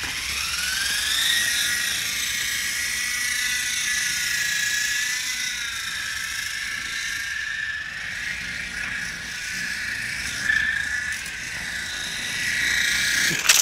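Small RC model Apache helicopter's motor and rotor spinning up with a rising whine, then holding a high, wavering whine as the helicopter flies out of control. The whine stops abruptly near the end.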